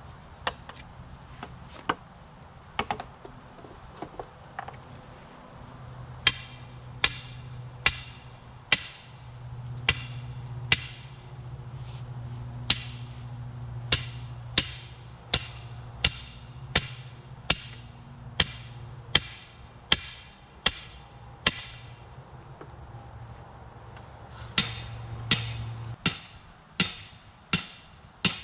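Fence post being hammered into the ground: a steady run of sharp, ringing blows about one a second, a short pause, then a faster run of blows near the end. A few lighter knocks come before the hammering starts.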